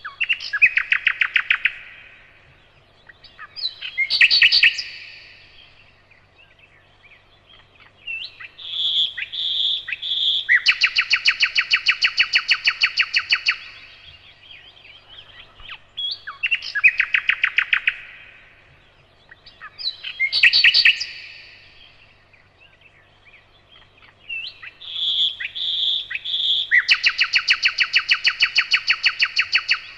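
Nightingale singing loud phrases of whistled notes and long, fast, rattling trills, with short pauses between them. The same sequence of phrases comes round again about halfway through.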